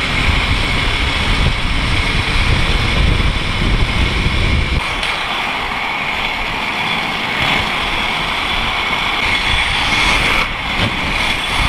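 Wind rushing over the microphone of a camera carried by a downhill inline skater, mixed with the roll of inline skate wheels on asphalt at speed. The heavy low buffeting eases about five seconds in, and a faint steady high whine runs underneath.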